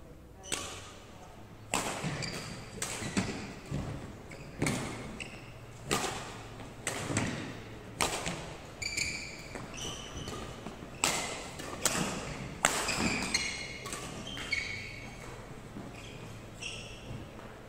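Badminton rally: a dozen or so sharp racket-on-shuttlecock hits, roughly one a second, with sneakers squeaking on the wooden court floor between shots.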